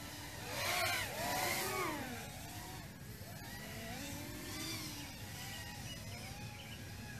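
Racing quadcopters' electric motors whining, their pitch gliding up and down with the throttle. The whine is loudest from about half a second to two seconds in, then carries on more softly.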